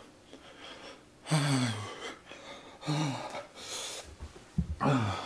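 A man gasping and groaning in pain from the burn of the Paqui One Chip Challenge chip: three short falling groans about a second and a half apart, each with hard breathing through the mouth. There are a few soft thumps between the last two.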